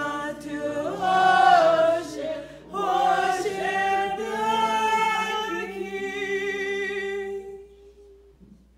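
A woman singing a slow worship song, holding long notes; the final note is held and fades away near the end.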